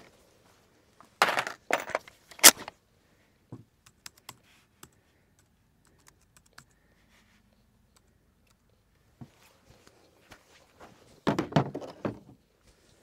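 Scattered metallic clicks, rattles and a few short louder clatters of guns and gear being handled, with a sharp click about two and a half seconds in.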